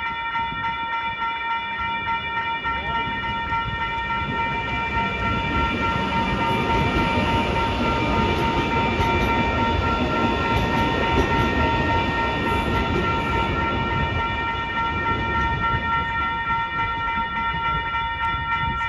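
Railway crossing warning bell sounding steadily while an electric commuter train passes over the crossing. The train's running and wheel-on-rail rumble swells to its loudest in the middle and eases off near the end.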